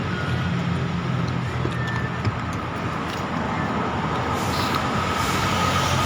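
Roadside traffic: a motor vehicle engine running steadily close by, with more road noise swelling after about four seconds as traffic passes.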